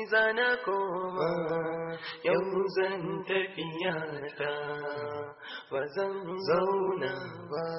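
A solo voice singing a Hausa song in a chant-like style, in long held, wavering notes with short breaks between phrases.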